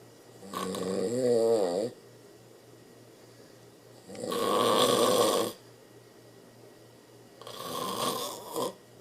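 A man snoring in his sleep: three snores about three and a half seconds apart, each lasting over a second, the first with a wavering, rattling pitch.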